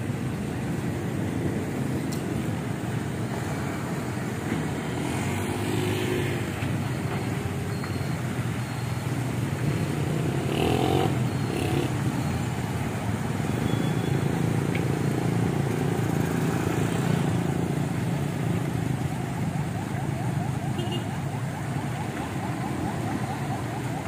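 Steady road traffic noise from motorcycles and motorcycle tricycles driving past, their small engines running continuously.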